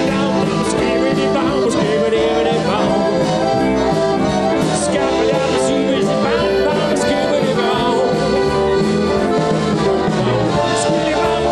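Live band music led by two piano accordions, one of them a Zupan, playing a lively tune over a drum kit keeping a steady beat.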